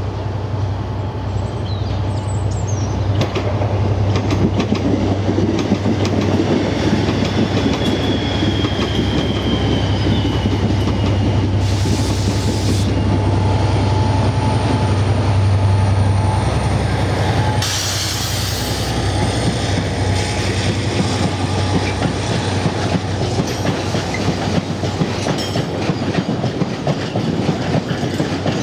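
Irish Rail 071 class diesel locomotive, its EMD 12-cylinder two-stroke engine running with a steady low drone, passes hauling red open freight wagons. Once it has gone by, the wagons' wheels clickety-clack over the rail joints in a steady rhythm. Two short hisses come around the middle, with a faint squeal before them.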